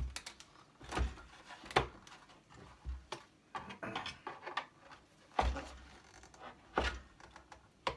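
Hand screwdriver working tiny screws out of an electronics unit's metal frame, with irregular light clicks and knocks and a few low thumps as the board and frame are handled on the bench.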